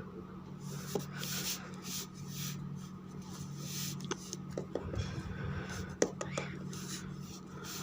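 Light rustling and scratching from handling small objects, with a few sharp clicks, the loudest about six seconds in, over a low steady hum.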